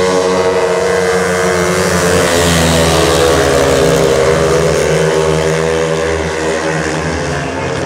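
Three speedway bikes' 500 cc single-cylinder methanol engines racing flat out, their pitch rising and falling as the riders slide through the bend and run down the straight. Loudest about halfway through, easing off a little near the end.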